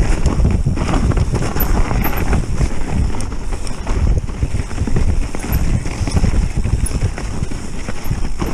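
Mountain bike riding fast down a frozen, snow-dusted trail: continuous rattling and knocking of the bike and a loosely mounted, very rattley GoPro over the rough icy ground, with wind rushing on the microphone.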